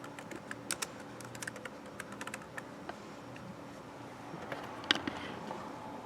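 Typing on a computer keyboard: scattered, irregular key clicks, with one sharper click about five seconds in.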